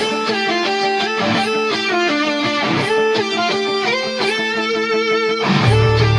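Guitar cover music: a clean, note-by-note guitar melody over a held low note, with the full, heavier backing coming back in near the end.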